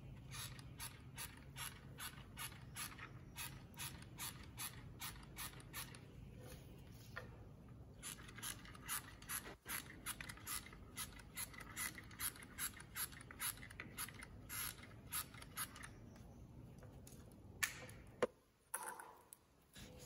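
Trigger of a corded hot glue gun ratcheting in a steady run of clicks, about two a second, then faster after a short pause about eight seconds in, with a couple of sharper knocks near the end.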